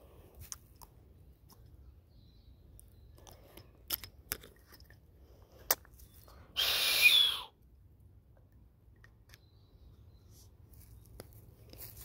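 Dry leaf litter crunching once, loudly, for about a second, about six and a half seconds in, amid otherwise quiet woods with a few light ticks.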